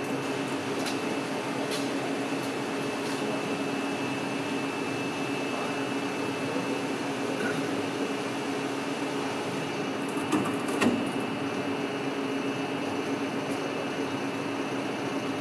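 Steady hum of running machinery, with a few light metallic clicks a little past the middle.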